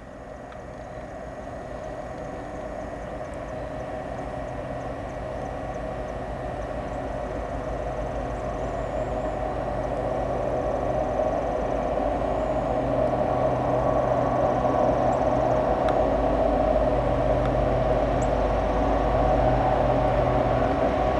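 Diesel locomotive engines of an approaching train, a steady engine drone and low rumble growing steadily louder as the train draws near.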